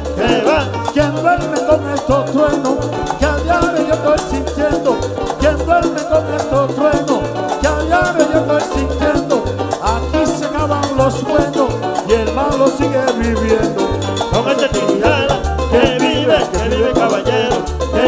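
Live Dominican son band playing, with an upright bass repeating a steady low pattern under a singer and the band.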